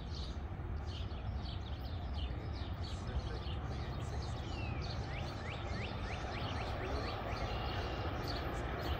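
Small birds chirping, many short downward-sweeping calls several times a second, over a steady low rumble.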